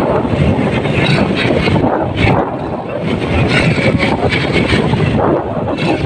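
Wind buffeting the microphone over waves breaking and washing up a pebble beach: a loud, uneven rumble.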